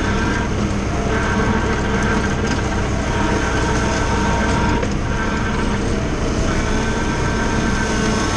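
Valtra A93 tractor's diesel engine running under load, driving a front-mounted Agrimaster flail mower that is cutting grass. A steady, loud mechanical drone whose pitch shifts a few times as the load changes.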